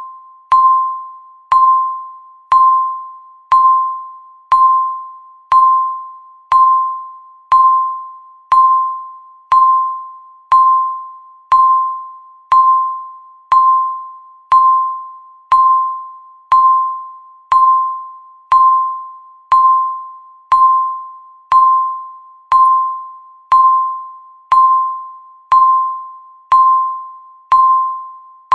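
Countdown timer tick sound marking each second: a short, bell-like ping that starts sharply and fades quickly, repeating evenly once a second.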